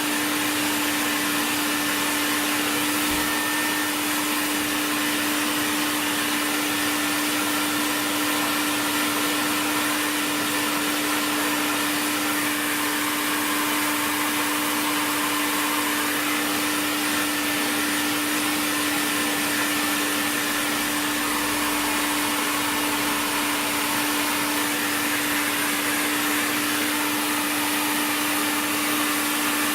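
Electric sander with a dust extractor running steadily, a constant motor whine over a hiss, while the repaired body panel is sanded down before priming.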